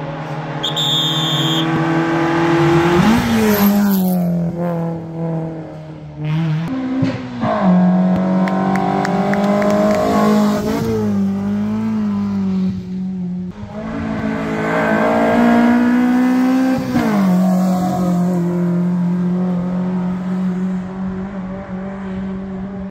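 Hill-climb rally car engines at full throttle on a mountain road, the pitch climbing and then dropping sharply several times as they shift up through the gears.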